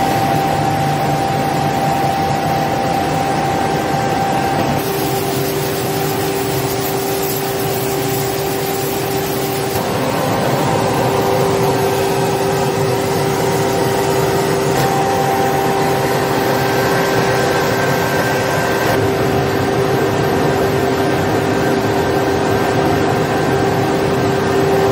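Automatic egg washing machine running: a steady whirring hiss from its roller conveyor, water pump and spray chamber. A steady hum comes in about five seconds in.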